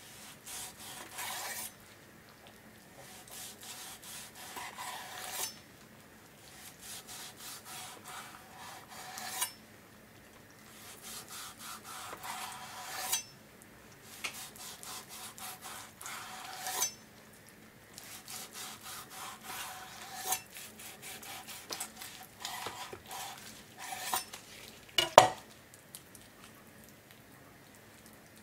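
Long kitchen knife slicing a cooked beef round roast on a wooden cutting board. There are about seven cuts, each a few seconds of back-and-forth strokes that end as the blade meets the board. A single sharp knock near the end is the loudest sound.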